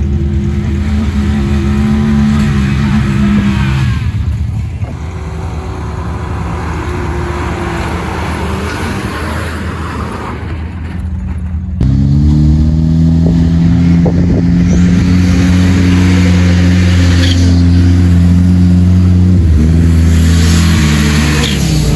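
Vehicle engine running and revving, its pitch rising and falling; about twelve seconds in it cuts abruptly to a louder, steadier engine note that slides down near the end.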